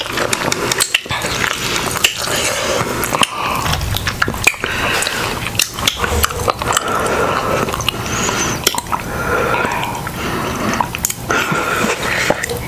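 Wet chewing and mouth sounds of eating sauce-covered seafood, with many small clicks and smacks.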